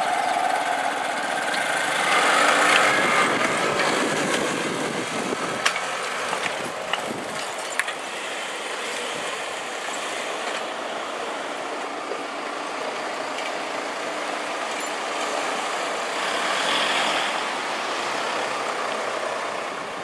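Road traffic driving over a railway level crossing: cars and a van passing, with a few sharp clicks about six to eight seconds in and a louder swell as a vehicle passes near the end.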